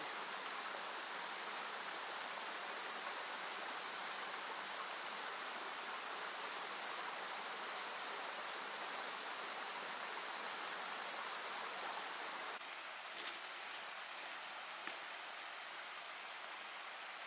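Steady rushing hiss of a forest stream's running water, dropping slightly in level about twelve and a half seconds in.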